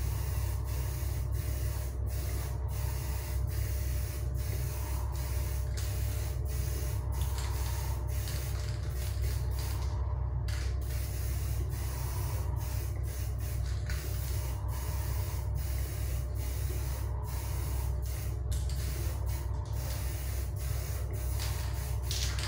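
Aerosol spray paint can hissing in passes, broken by many brief pauses, as a covering coat is laid on. Under it, a paint-fume extraction fan hums steadily.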